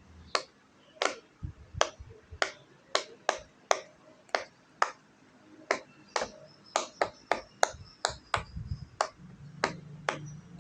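Silicone pop-it fidget toy being pressed bubble by bubble, a string of sharp little pops about two a second.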